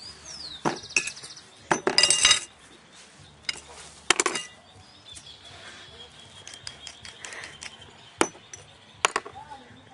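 Glass clinking and knocking in short sharp clinks, with the loudest cluster about two seconds in and scattered single clinks after.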